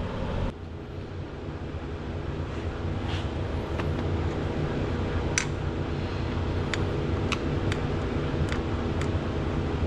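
Steady low machine hum with several steady tones in it. It dips about half a second in and slowly builds back, with scattered light clicks in the second half.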